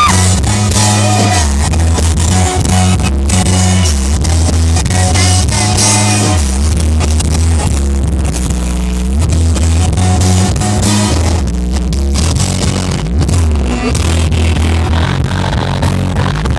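A rock band playing live through a concert PA, heard from within the crowd, with a heavy, prominent bass and guitar. A voice sings a short phrase in the first second.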